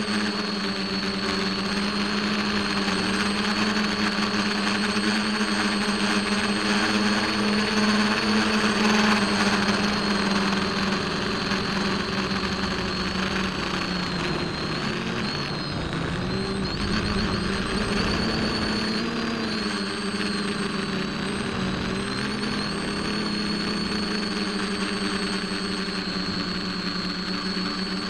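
RC plane's motor and propeller running steadily, heard from the plane's own onboard camera: a hum with a thin high whine above it. The pitch wavers and dips several times midway, then settles again.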